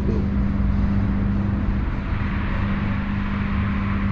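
Steady low machine hum with a constant pitched drone, and a hiss that swells in the second half.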